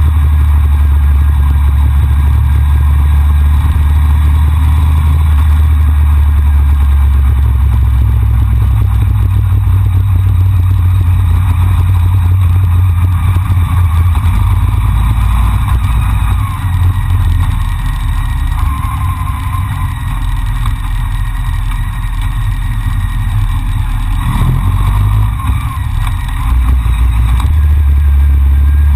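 Motorcycle ridden at road speed, recorded by an onboard camera: a steady low wind rumble over the running engine. It eases off a little past halfway and picks back up near the end.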